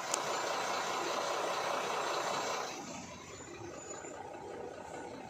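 Rushing road and engine noise inside a moving truck cab, louder for the first two and a half seconds and then easing to a quieter steady hum. A single sharp click comes just at the start.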